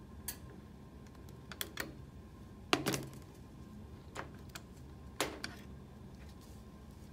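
Scattered sharp clicks and light knocks from hand work on a metal print head: flush-cut side cutters snipping plastic ink tubing off a barb and being put down, and the print engine's sheet-metal parts being handled. The loudest knock comes about three seconds in.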